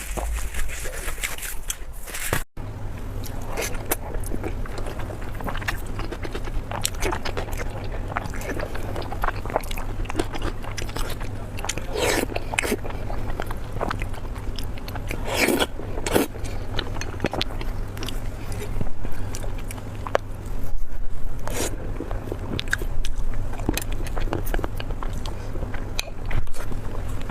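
Close-miked eating: steady biting and chewing of food with many small wet clicks and crackles, and a brief break about two and a half seconds in.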